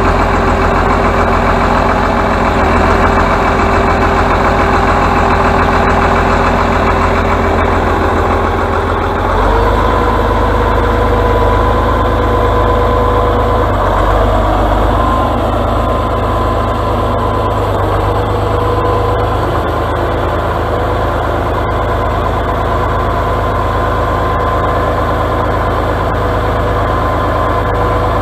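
Atlas 1602 wheeled excavator's diesel engine running steadily. About a third of the way through its steady whine steps up in pitch and stays higher as the revs rise.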